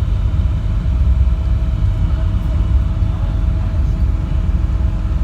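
Steady low rumble of a moving city bus heard from inside the cabin: engine and road noise.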